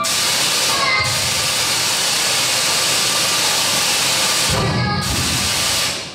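A loud, steady hiss of noise, dipping briefly about a second in and again near five seconds, then cutting off suddenly near the end.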